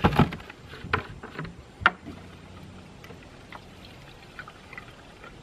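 A few sharp clicks and knocks in the first two seconds as the fuel cap and a plastic gas can are handled, then gasoline pouring faintly and steadily from the can into a push lawn mower's fuel tank.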